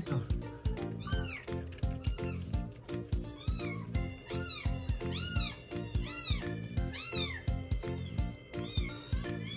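Young calico kitten mewing repeatedly as it feeds from a milk bottle: short, high mews that rise and fall, about one or two a second. Background music with a steady beat runs underneath.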